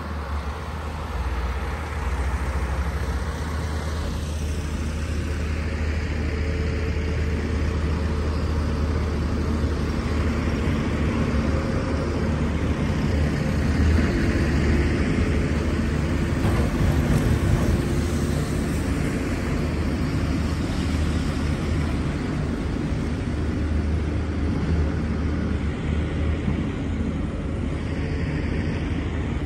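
Diesel engines of snow-removal machines running with a steady low drone, with cars passing on the wet, slushy street, one louder pass about halfway through.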